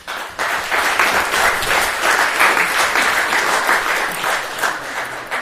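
Audience applauding at the close of a talk, dying away near the end.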